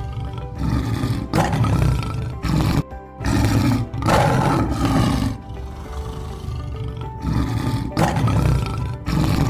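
Lion roaring in a series of loud, repeated roars with short gaps between them, over background music.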